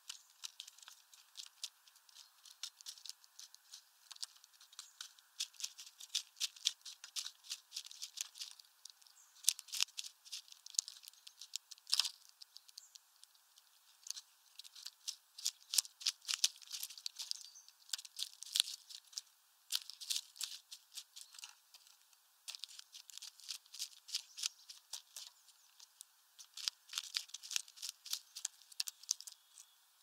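Common starlings pecking at sunflower seeds and husks on a feeder tray: a dense, irregular run of sharp beak taps and clicks with rustling of husks.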